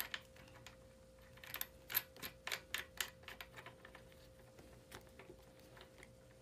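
Light clicks and small metallic taps of a lock nut being threaded on by hand, bunched between about one and a half and three seconds in.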